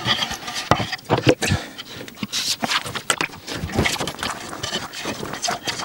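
Wooden panels being handled on a workbench: irregular knocks and scraping as the boards are set down and slid into place. The sharpest knock comes about a second in.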